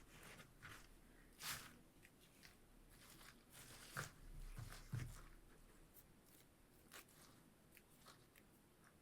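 Faint crackling and rustling of dry flower and plant stems being pushed into a string-and-stick weaving, with a few louder crunches about one and a half, four and five seconds in.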